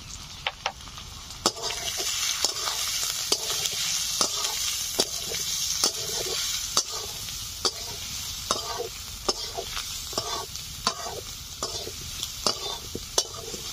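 Spice masala with onions and fried potatoes sizzling in hot oil in a pan while a spatula stirs it, knocking and scraping against the pan about once a second. This is the masala being fried before water is added. The sizzle grows louder about a second and a half in.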